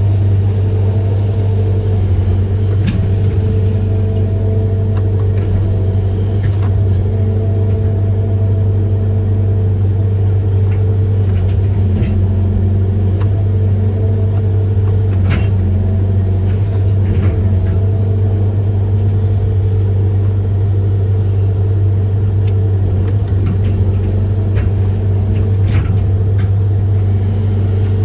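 Amphibious excavator's diesel engine running steadily under load, a constant low drone, with scattered short knocks.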